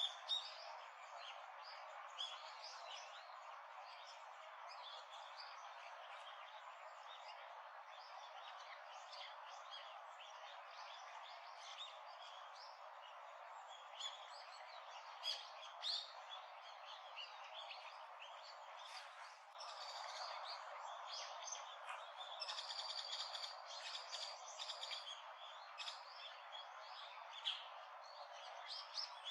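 Wild birds chirping: many short, scattered calls over a faint steady background hiss, which grows a little louder about two-thirds of the way through.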